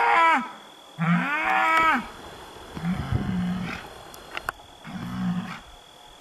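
Bulls bellowing at one another as they posture after being regrouped. A loud call fades out just after the start, then a second loud, drawn-out bellow rises and falls from about one to two seconds in. Two shorter, quieter calls follow.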